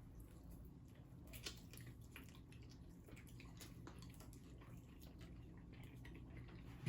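Faint chewing and small clicks of chicken wings being eaten, over a low steady room hum.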